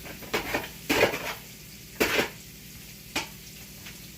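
A metal ladle scraping and knocking against a pan in four separate strokes, over faint steady sizzling in the pan.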